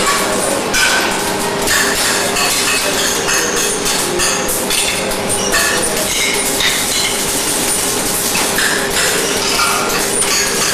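Many quick metallic clinks and knocks of small metal label moulds being handled on work tables, over a steady machine hum.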